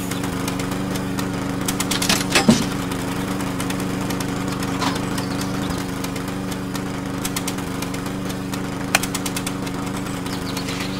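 Small motor of a miniature soybean-sieving machine running with a steady hum, with a clatter of soybeans poured into the plastic-bottle hopper about two seconds in and a few more clicks near the end.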